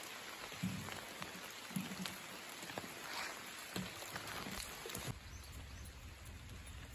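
Faint outdoor ambience with scattered light clicks and a few low knocks; about five seconds in it changes abruptly to a low, steady rumble.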